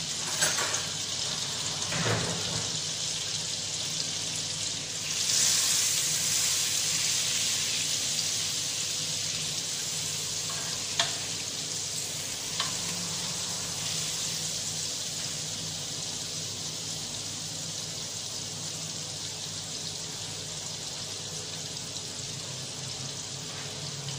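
Butter melting and sizzling in hot oil in a frying pan: a steady hiss that swells about five seconds in, then slowly eases off. A few light clicks come as the butter is pushed around the pan with a spatula.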